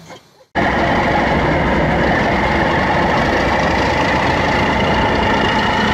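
Class 37 diesel-electric locomotive's engine running steadily at close range, with a steady high whine over the engine note. It starts abruptly about half a second in.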